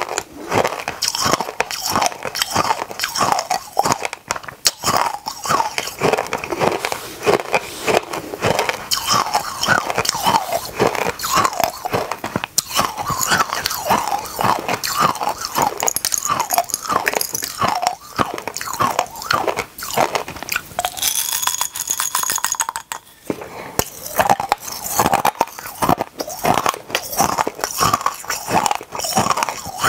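Close-miked crunching and chewing of small hard candies: a rapid, irregular run of sharp cracks and crunches.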